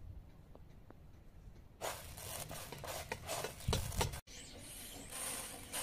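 Hands sifting and picking through raw rice on a metal tray: grains rustling and rubbing against the metal, with small clicks and a soft thump. In the last second and a half a steady rasping takes over.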